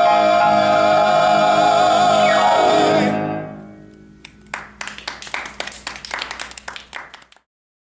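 Four-part male close-harmony group holding the final chord of a song with vibrato, one voice sliding down as the chord ends about three seconds in. Then a few seconds of scattered hand clapping, which stops shortly before the end.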